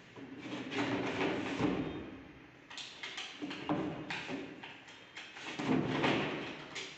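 Wooden hydraulic storage bed's lifting top being lowered shut on its gas-lift struts: a rushing, rubbing sound as it comes down, then a string of light knocks and clicks as the panel settles onto the bed frame and is handled.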